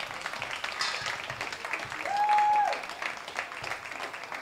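Spectators clapping at an outdoor football match, a scattered patter of hand claps. About halfway through, a single steady high tone, held for under a second, rises above the clapping and is the loudest sound.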